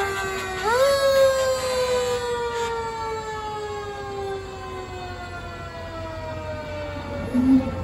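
A Mack fire engine's siren winding down in a slow falling wail, with one quick rise about a second in before it keeps sliding lower. A short low sound comes near the end.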